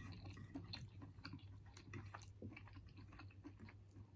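Faint close-miked chewing: irregular soft wet mouth clicks and smacks of someone eating, over a steady low electrical hum.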